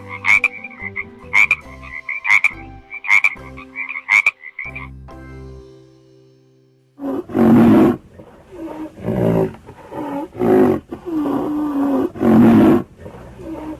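Frogs croaking in sharp, quickly repeated calls over a faint melody, which fades out about five seconds in. After a short gap, a big cat roars and growls loudly several times.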